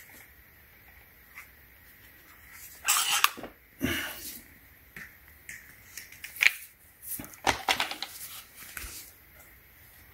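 Handling noise from the plastic pole saw head: a series of short rustling and clattering sounds as it is moved about and set down, the loudest about three and four seconds in.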